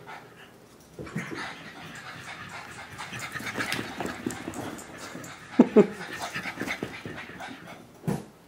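French bulldog puppies running about and playing, with scuffling and scrabbling noises, and a few loud thumps about two-thirds of the way in and near the end.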